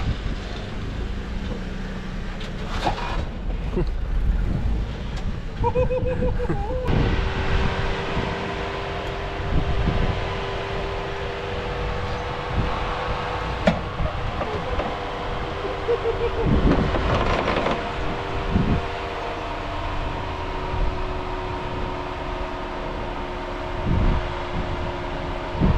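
An off-road 4x4 crawling over rock: a low engine rumble with scattered knocks and thumps, joined about seven seconds in by a steady whine that holds to the end.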